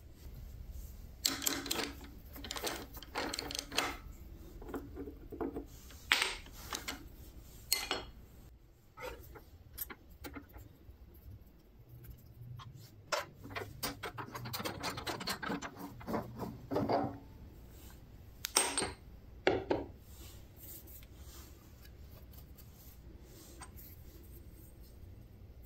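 Metal clinking and scraping in several short bursts as a four-jaw scroll chuck is unscrewed from the lathe's threaded headstock spindle and set down on the bench.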